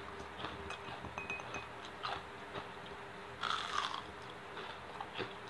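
A person chewing food close to the microphone, with small wet mouth clicks and one louder crunch about three and a half seconds in.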